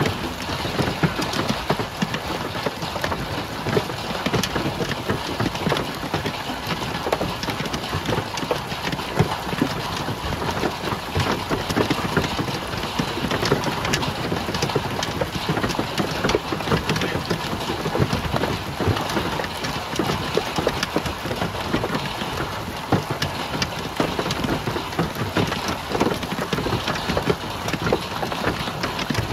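Hailstones pelting down in a dense, continuous clatter of countless hard impacts, with no let-up.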